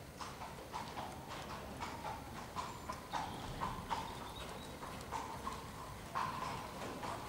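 A horse's hoofbeats on the footing of an indoor arena, in a steady rhythm of about two a second as the horse works under saddle.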